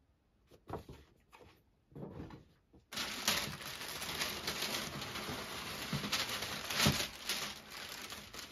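A few soft handling knocks, then about three seconds in a sudden, continuous rustling and crinkling of packing paper as it is pulled out of a cardboard box and rummaged through.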